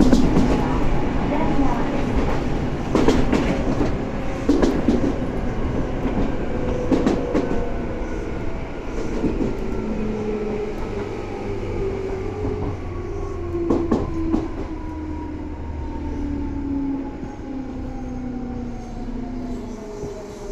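Tobu 9000 series electric commuter train running, heard on board as it slows. Its motor and gear whine glides steadily down in pitch while the running noise fades. The wheels clack over rail joints a few times.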